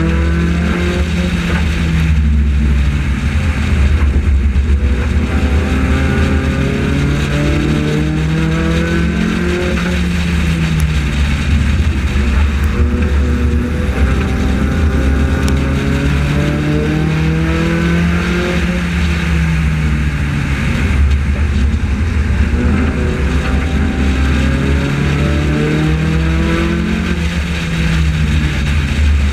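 Onboard sound of a Honda-engined front-wheel-drive race car lapping an oval. The engine's pitch climbs and then drops about four times, roughly every eight or nine seconds, as it accelerates down each straight and lifts for the turns, over a constant low rumble of wind and road.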